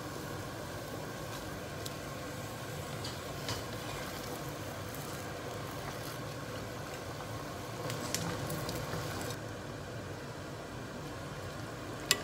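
Pot of broth boiling on a gas stove, a steady bubbling hiss, with soft rustling and a few light clicks as bok choy and cabbage leaves are pushed into the pot.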